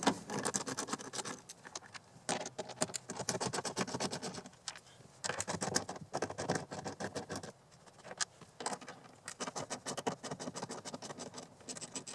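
10 mm socket ratchet clicking as it backs out the bolts holding a car door speaker mount, in several spells of rapid clicks separated by short pauses, with some scraping.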